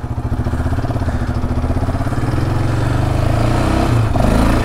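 Yamaha Raptor 700's single-cylinder four-stroke engine pulling under throttle, growing steadily louder. No chain rattle can be heard: the rattle appears cured.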